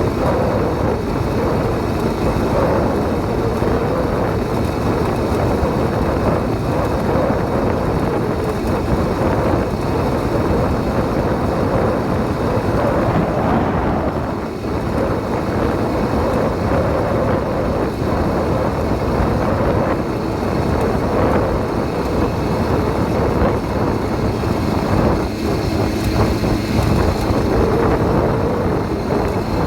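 Small 80cc two-stroke engine of a motorized bicycle running steadily at riding speed, with wind noise on the microphone. The sound dips briefly a couple of times.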